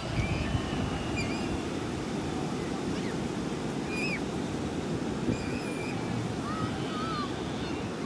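Steady low rushing noise of wind or surf outdoors, with faint, short bird chirps scattered through, some rising and falling, more of them near the end.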